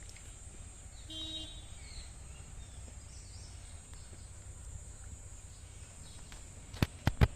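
Steady high-pitched insect buzz over a low rumble, with a brief pitched call about a second in. Several sharp knocks come close together near the end.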